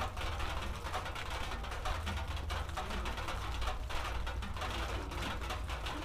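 Raindrops tapping in quick, irregular ticks, over a steady low rumble.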